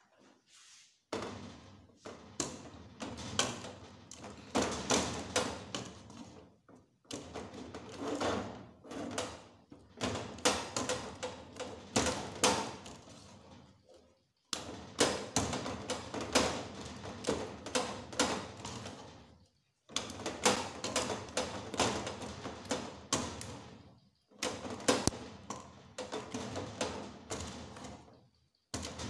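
Wooden spatula knocking and scraping against an aluminium pot as thick amala (yam-flour dough) is turned, in stretches of quick knocks separated by short pauses.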